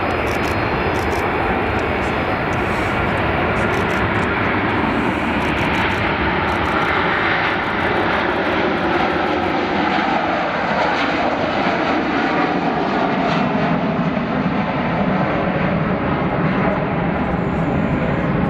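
Jet airliner engines at takeoff power, a steady loud roar. Between about ten and thirteen seconds in, whining tones fall in pitch as a climbing twin-engine airliner passes overhead.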